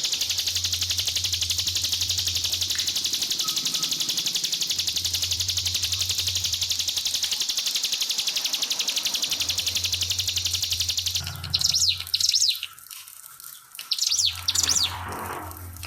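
Ciblek pinus (prinia) songbird singing its rapid 'nembak' song: one long, very fast, high trill for about eleven seconds, then shorter separate chirping phrases, over faint trickling water.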